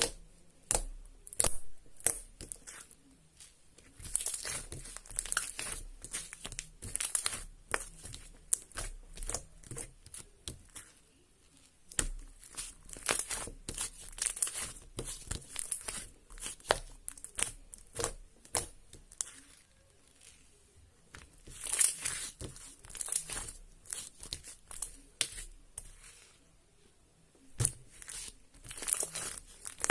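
Glitter slime being squished and stretched by hand, making irregular sticky crackles, clicks and small pops in clusters with brief pauses between.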